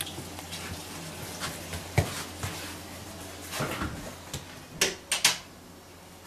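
Wooden doors being handled: a few knocks and rattles, the loudest a sharp knock about two seconds in and a quick run of sharp clicks a little before five seconds in.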